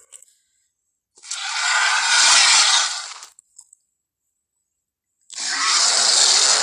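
Two long, raspy, hissing roars of a dinosaur sound effect built from dragon and crocodile sounds. Each lasts about two seconds, with silence between them; the second starts about five seconds in.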